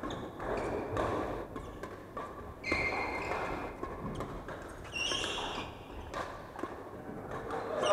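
Badminton rackets striking a shuttlecock: a few sharp hits spaced a second or more apart, with short squeaks of court shoes on the wooden floor.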